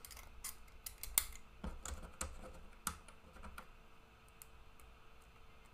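Small padlock being worked with a white 3D-printed plastic key: a run of light clicks and rattles from the shackle and the key in the lock, closely spaced over the first three seconds, then sparser.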